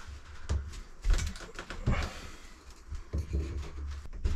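A few light knocks and scrapes of wood as a glued cabin-side extension strip is pushed into place and wedged with wooden blocks.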